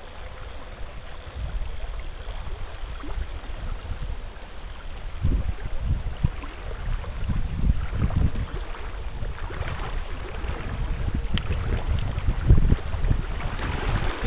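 Shallow river current running over a gravel bed, with uneven low rumbling from wind and handling on the camera microphone.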